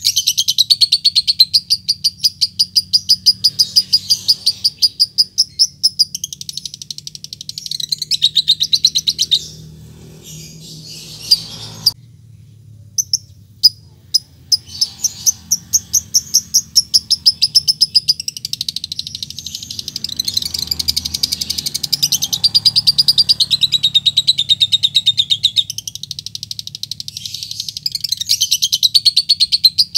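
Lovebird chattering in long runs of rapid, high chirps (the extended 'ngekek' trill). About ten seconds in it breaks off for a few seconds with only scattered single chirps, then resumes the rapid chatter.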